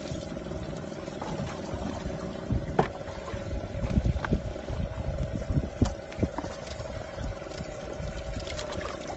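Scattered knocks, clicks and low thumps of fish being handled and lifted out of a bass boat's livewell, over a steady hum.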